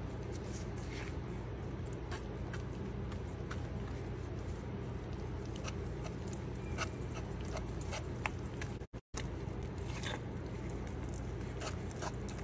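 Wooden spoon stirring a thick paste in a pot, with scattered light clicks and scrapes over a steady low hum. The sound cuts out briefly about nine seconds in.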